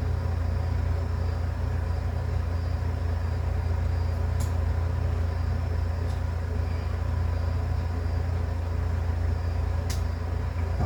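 A steady low hum, with a few faint light clicks about four, six and ten seconds in.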